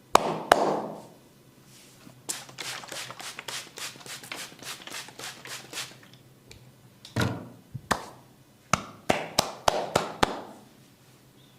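Massage percussion, hands striking bare skin: a run of quick light taps about seven a second, then a handful of sharp, loud slaps and cracks.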